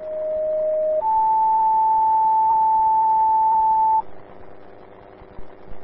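Two-tone sequential dispatch page on a fire and EMS radio channel: a lower steady tone for about a second, then a higher tone held for about three seconds, over faint radio hiss. It is the alert that sets off station pagers for a new call.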